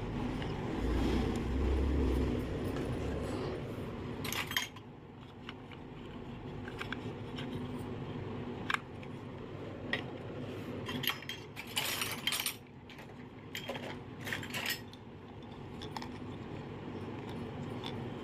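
Small plastic toy kitchen pieces clicking and tapping as they are handled and set down on a concrete floor: scattered sharp taps, several in quick succession near the middle and again a little later, over a steady low background noise.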